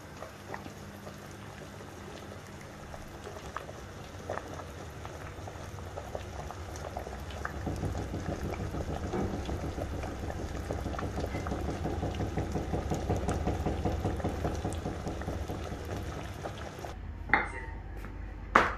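Water boiling in a large stainless steel stockpot on a gas hob: a steady bubbling that grows louder over the first dozen seconds, then eases slightly. Near the end come two sharp knocks about a second apart.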